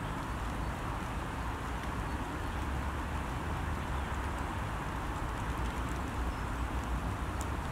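Steady hiss of rain falling on a pond, with a constant low rumble underneath and a few faint ticks of drops.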